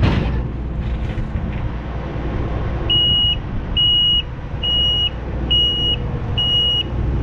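Heavy machinery engine running steadily, with a reversing alarm starting about three seconds in: short, high, even beeps a little more than one a second.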